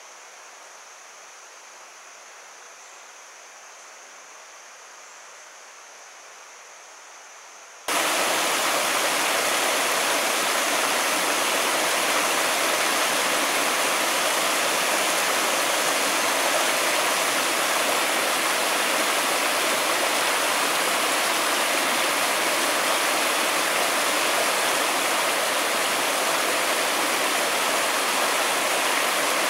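Small mountain stream running over rocks: a steady, loud rush of water that cuts in abruptly about eight seconds in. Before it, only faint outdoor ambience with a thin high steady tone.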